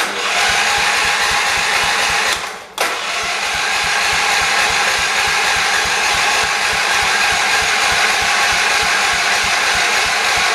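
1978 John Deere 208 lawn tractor's engine being cranked over by its starter without firing: a steady whirring chug with a regular low pulse. It stops for a moment about two and a half seconds in, then starts again. The engine is not catching because fuel is not reaching it; the owner finds either the fuel pump is not working or gas is not getting to the pump.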